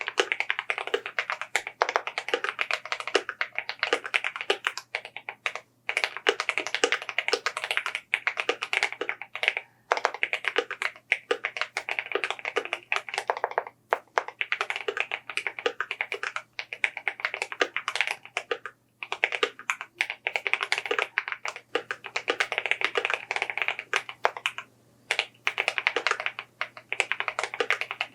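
Fast, continuous typing on a mechanical keyboard, key strokes clacking in runs of several seconds broken by brief pauses, over a faint steady low hum.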